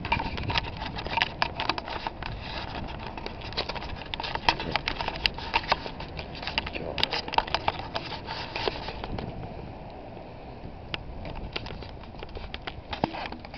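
Low wind rumble on the camera microphone, with dense irregular crackling and clicking from the camera being handled. The clicks thin out after about nine seconds.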